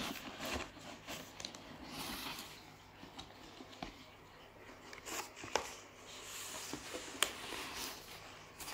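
Rustling and crinkling of a courier mailer bag being handled and pulled open, with a few sharp clicks and taps scattered through.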